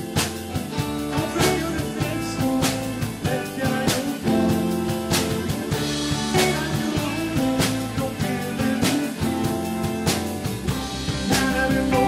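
Live band playing blues-jazz with no vocals: electric guitar notes over a drum kit and bass, with a strong drum and cymbal hit about every second and a quarter.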